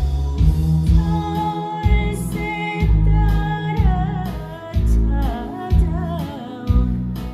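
Korean trot song: a solo voice sings with heavy vibrato over a band backing track with a steady bass-and-drum beat, the voice entering a few seconds in.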